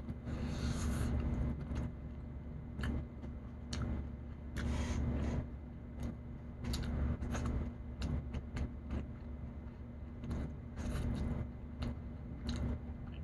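Eating with bare hands close to the microphone: chewing and mouth clicks, with fingers picking shredded meat out of a takeout container that rustles and scrapes in short irregular bursts over a steady low hum.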